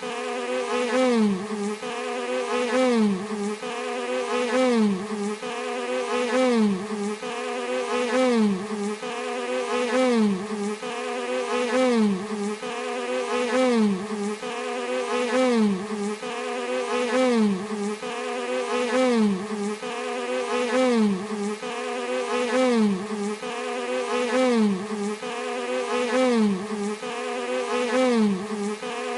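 Bee buzzing in a continuous drone that wavers in pitch and swells in an even, repeating cycle about every two seconds.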